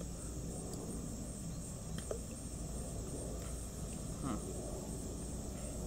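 Steady outdoor background with crickets or other insects making a constant high drone. A few faint clicks and one brief soft sound come about four seconds in.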